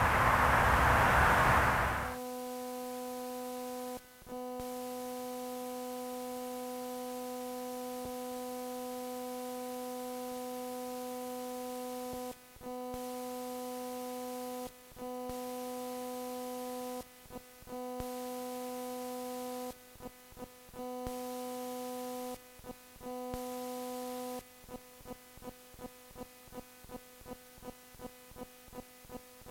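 A loud rushing noise for about two seconds, cut off by a steady electronic hum-like tone. The tone drops out briefly several times, and near the end it becomes a pulsing about twice a second.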